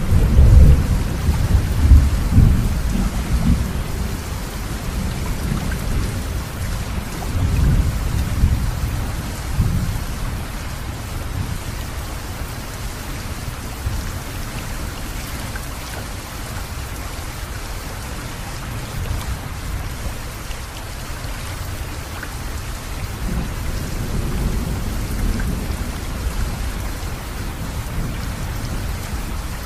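Thunderstorm: steady rain with rolls of low thunder, the loudest rumbling right at the start, another about eight seconds in, and a softer, longer roll near the end.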